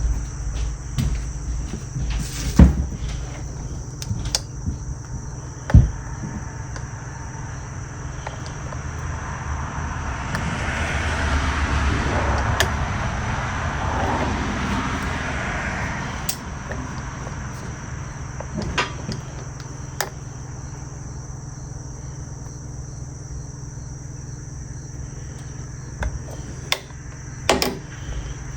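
Hands working on a dismantled two-stroke dirt bike engine: scattered metallic knocks and clinks, two of them sharp and loud in the first six seconds, and a longer stretch of scraping and rustling in the middle, over a steady hum and a constant high whine.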